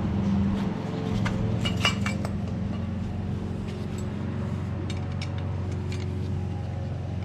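Light metallic clinks and taps as a clutch throwout bearing is handled and fitted onto a manual transmission's bell housing, a cluster of them about a second in and more scattered ones later, over a steady low hum.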